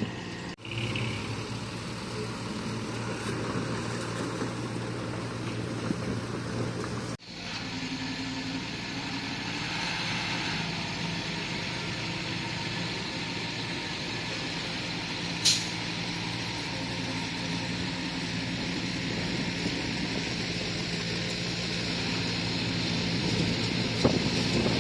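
Bulldozer's diesel engine running steadily under load, with a short sharp high-pitched sound about two-thirds of the way through. The sound drops out for an instant twice near the start.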